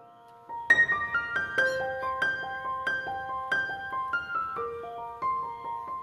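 Background piano music: a slow melody of single struck notes that ring on, starting after a brief pause about half a second in.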